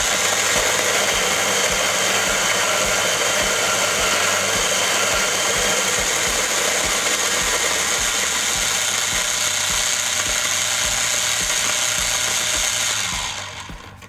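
Kalita Nice Cut Mill electric coffee grinder grinding a 15 g dose of coffee beans: a loud, steady grinding that dies away about a second before the end.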